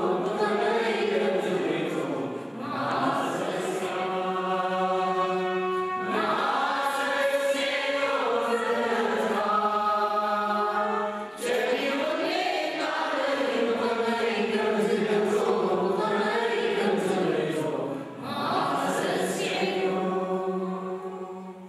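A choir singing a hymn in long sustained phrases, with brief breaks between phrases.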